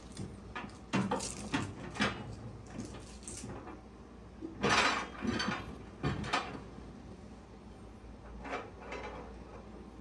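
Glass turntable plate and roller ring of a Hommer microwave being handled and fitted inside the cavity: a series of light clinks and knocks of glass and plastic against the oven floor, loudest about five seconds in.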